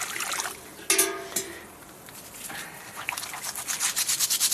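Cleaning brush scrubbing a bird bath in quick, even strokes, about five a second, starting about three seconds in. About a second in, a short, loud pitched animal call sounds once.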